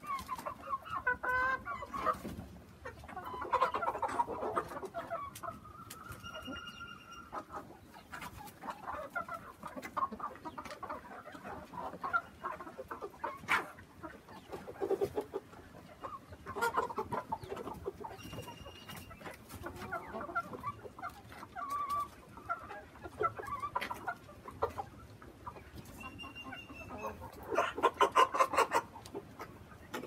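A flock of country chickens, hens and roosters, clucking throughout, with a few longer drawn-out calls. The loudest burst of calls comes near the end.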